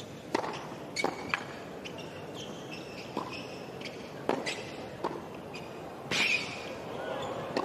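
A tennis serve and the rally after it on a hard court: sharp racket-on-ball strikes and bounces about once a second, over a steady background hum.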